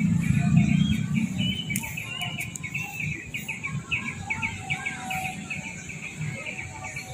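Birds chirping in a fast, continuous run of short repeated notes, over a steady faint high hiss. A low rumble is present for about the first second and a half.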